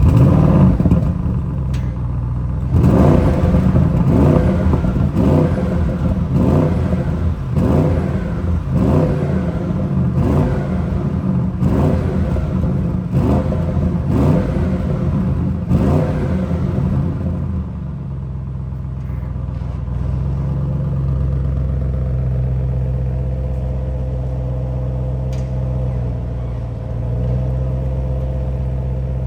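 Audi RS7 Performance's 4.0-litre twin-turbo V8 starting up and running loudly with a regular pulsing beat. About 18 seconds in it settles into a steadier, lower idle.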